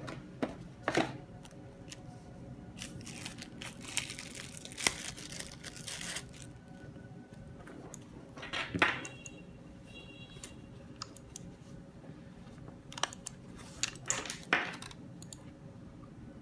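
Handling noise from unboxing a gaming mouse: rustling of paper and packaging, with scattered light plastic clicks and taps as the accessories and the mouse are picked up and set down. The rustling is thickest a few seconds in, and there are short bursts of clicking near the middle and towards the end.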